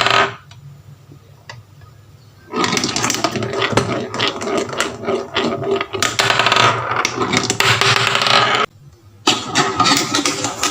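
Toy pieces rolling and clattering down a wooden marble-run track, a loud, dense rattle. It starts a couple of seconds in, breaks off suddenly for a moment, then resumes.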